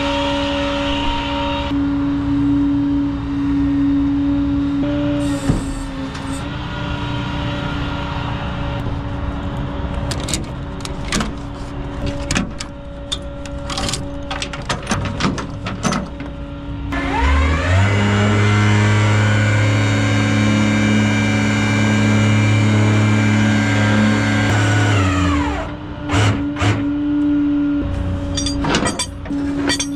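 Tow truck engine idling while ratchet tie-down straps are released, with sharp clicks of the ratchets and clanks of the hook chains against the metal bed. About 17 seconds in, the engine speeds up to a higher steady run for about eight seconds, then drops back to idle.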